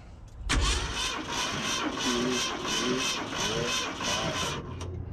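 Starter motor cranking a Ford 460 big-block V8 for about four seconds, spark plugs out, to build pressure on a compression gauge; it stops shortly before the end. The engine is worn, with cylinders reading only around 60 psi, which the owner calls pretty low.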